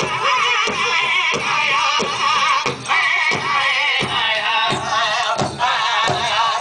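Powwow drum group playing a chicken dance song: a big drum struck in unison at a steady beat of about three strokes every two seconds, under high, wavering group singing.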